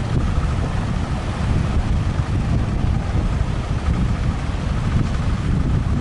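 Strong wind buffeting the microphone in a heavy, steady rumble, over the noise of breaking surf.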